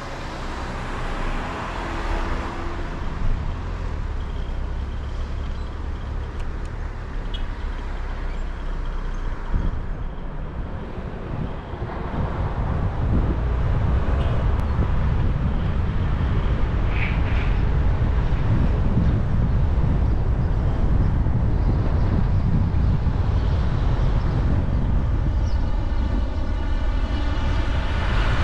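Car driving on the road: steady engine and tyre noise that grows louder about twelve seconds in as the car picks up speed, then holds steady.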